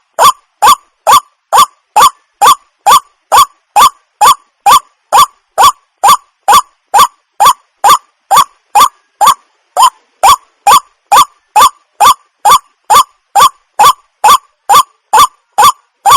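White-breasted waterhen (burung wak-wak) calling a short, loud 'wak' note over and over, evenly spaced at about two calls a second.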